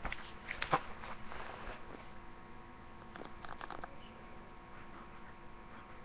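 Sheets of paper being handled close to the microphone: a few clicks and rustles in the first two seconds, and a smaller cluster around three to four seconds in, over a faint steady electrical hum.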